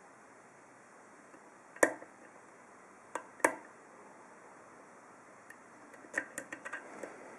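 Steel hook pick working the pin stacks of a Best 7-pin interchangeable-core padlock under light tension, making small metallic clicks: a sharp one about two seconds in, two close together a little past three seconds, and a quick run of small clicks near the end.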